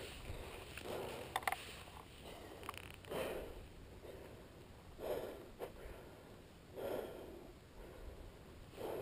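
A mountain-bike rider's heavy breathing inside a full-face helmet, slow breaths coming about every two seconds. A couple of short clicks sound about a second and a half in.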